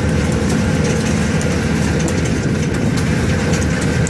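Tractor engine running steadily while it pulls a watermelon harvesting rig, a dense low rumble with occasional light clicks over it.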